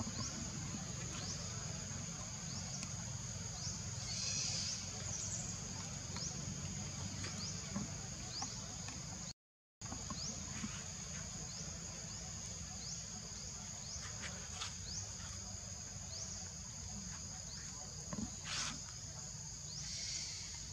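Forest ambience dominated by a steady high-pitched insect drone from cicadas or crickets. A short rising chirp repeats at an even pace, about every two-thirds of a second, over a low rumble, with a few brief rustles. The sound cuts out for a moment about halfway through.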